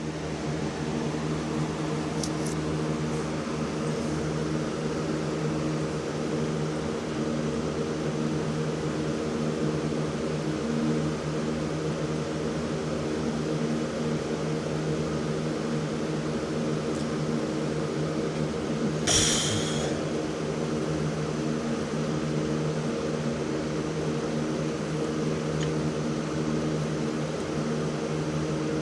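Steady low hum of a fan-like machine with a few fixed tones in it. About two-thirds of the way through comes one short, breathy hiccup.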